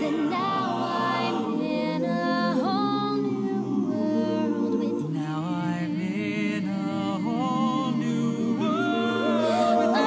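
Music: a solo voice singing long held notes with vibrato over sustained backing chords.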